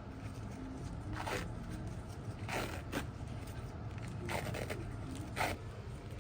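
About six short scraping strokes, spaced irregularly a second or so apart, over a steady low hum.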